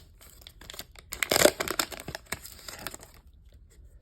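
Foil wrapper of a Pokémon card booster pack being torn open and crinkled by hand, a run of crackling and tearing that peaks about a second and a half in and fades out after about three seconds.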